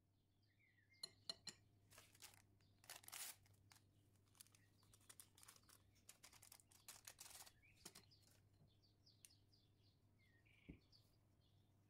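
Faint kitchen handling sounds: scattered clicks and short scraping or rustling strokes, with faint bird chirps in the background.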